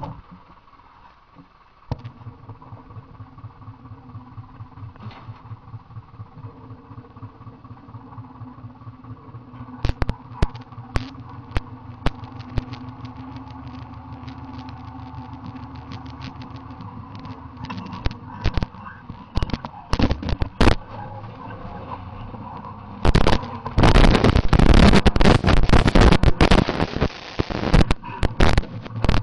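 Massey Ferguson tractor's diesel engine running with an even pulsing beat, heard from aboard the tractor; the beat sets in about two seconds in. From about ten seconds on, scattered knocks and clatter join it, and near the end loud crackling noise on the microphone almost covers the engine for a few seconds.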